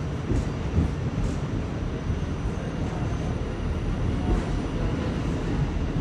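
Inside a moving R46 subway car: the steady rumble of the wheels and running gear on the rails, with a few light knocks.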